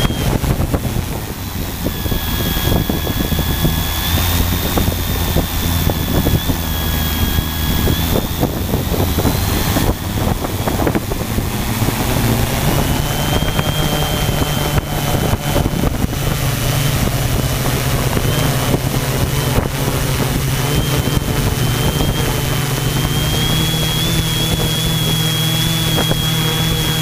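Multirotor drone, the FY690 hexacopter's six brushless motors and propellers, heard from its onboard camera: a steady propeller hum under a high motor whine that wanders slightly in pitch. The low hum shifts about ten seconds in.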